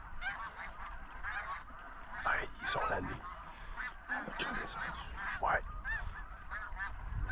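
A flock of snow geese calling, many short, overlapping high honks at once, with a few louder calls standing out about two to three seconds in and again past the middle.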